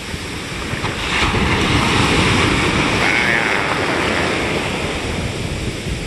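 Ocean surf: broken-wave whitewater rushing and washing around the microphone, swelling about a second in and slowly easing off.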